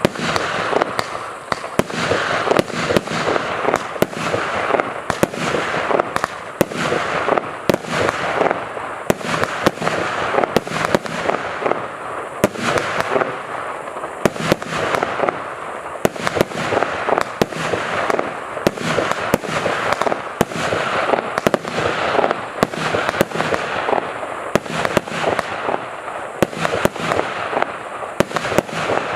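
A 48-shot, 0.8-inch firework battery (OS6490 'Cowboy') firing continuously: a steady run of sharp shots and bursts, several a second, over an unbroken hiss.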